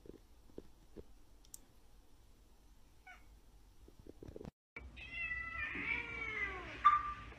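Near silence with a few faint taps, then a cat's long meow lasting about two seconds, its pitch rising then falling. It ends in a short, sharp, louder cry.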